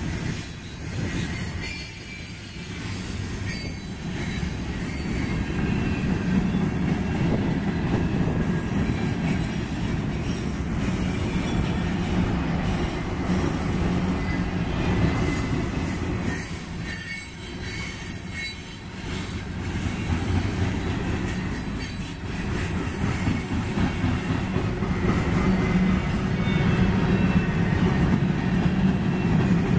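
Freight cars of a passing manifest train rolling by close to the track: steel wheels rumble and clack over the rail, with a thin wheel squeal over it. The sound swells and dips as the cars go past.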